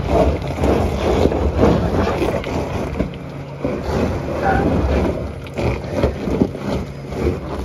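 Rivian R1T electric pickup crawling up a rocky dirt trail: tyres crunching and grinding over rock and loose dirt in an irregular crackle, with wind rumbling on the microphone.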